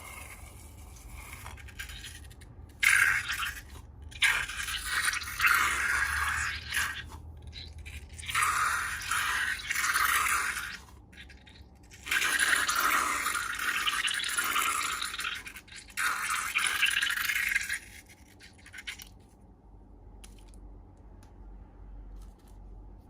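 Slime being worked by hand: repeated bursts of hissing, scraping noise, each a second to a few seconds long with short breaks, stopping a few seconds before the end.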